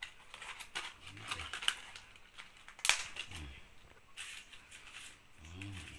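Plastic courier mailer packets rustling and crinkling as they are handled, with a sharp click about three seconds in.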